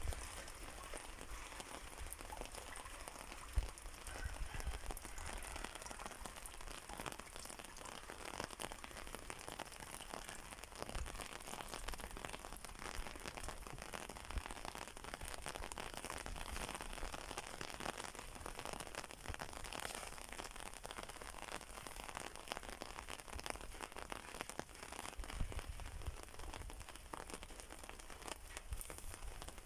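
Steady rain falling, with many small drops pattering and ticking on surfaces.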